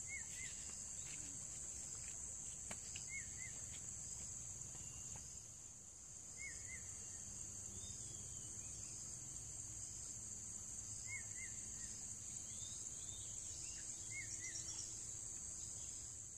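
Steady high-pitched drone of insects, with a bird giving short paired chirps about five times, every few seconds.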